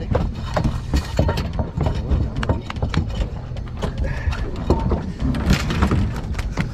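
Irregular clicking and knocking of fishing tackle and gear being handled on an aluminium boat, over a steady low rumble.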